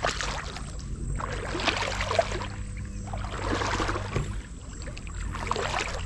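Water sloshing and splashing in repeated strokes, about one every second or so, as something moves through shallow floodwater.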